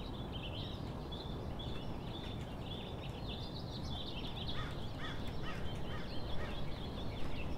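Several wild birds chirping and singing, with a quick run of about five falling notes in the middle, over a steady low outdoor rumble.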